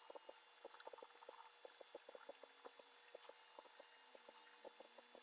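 Near silence: faint, irregular crackling clicks, several a second, over a low steady hum in the recording.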